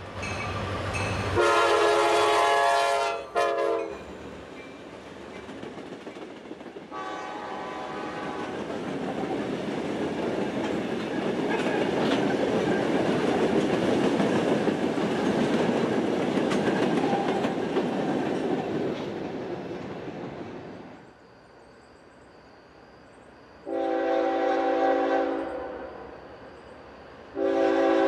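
A diesel freight locomotive's air horn blows as the train approaches, then the locomotive consist rolls past with a steady rumble of wheels on rail and clickety-clack over the joints, and the sound fades out sharply. Near the end, the horn of another approaching train sounds twice.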